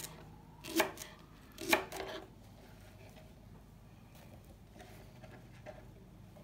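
Two knife chops through a leek onto a plastic cutting board, about a second apart, then faint rustling and light ticks as the cut leek rounds are handled and dropped into a bowl.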